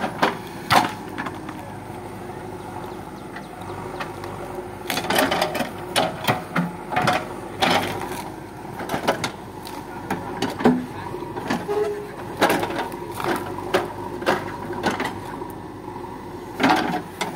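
JCB backhoe loader's diesel engine running under load while its rear bucket digs into soil and tree roots, with repeated irregular knocks and clatter from the bucket and arm.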